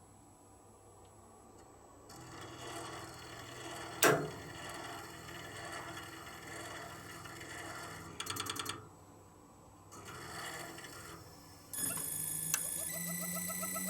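Toshiba twin rotary inverter compressor in an opened-up 1998 RAS-285LADR outdoor unit. A sharp click and a brief rapid rattle come before it; about twelve seconds in, the compressor starts with a steady high whine of several tones, and a second pulsing tone joins about a second later as the inverter steps up through its startup stages.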